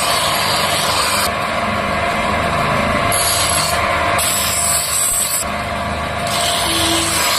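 Steady rasping of metal being ground against a scissor blade as its edge is sharpened.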